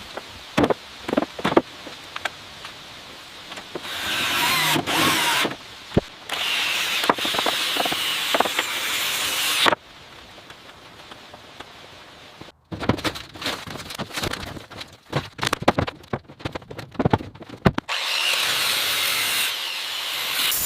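A series of construction tool sounds: a few sharp knocks, then stretches of power-tool noise, a run of quick irregular knocks and rattles, and another stretch of steady power-tool noise near the end.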